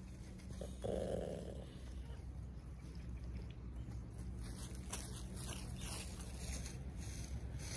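Small dog growling low at a sheep close in front: a louder growl about half a second in, then a faint steady low rumble.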